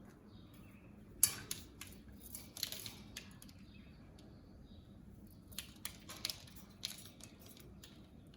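Cockatiels splashing in a shallow dish of water, with short bursts of splashing and sharp clicks against the dish: one sharp click about a second in, a longer burst soon after, and another cluster near the end.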